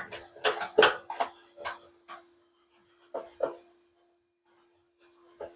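Dryer vent cleaning brush scrubbing down inside a clothes dryer's lint-screen slot: a run of quick rubbing strokes, then a few more spaced out, over a faint steady hum.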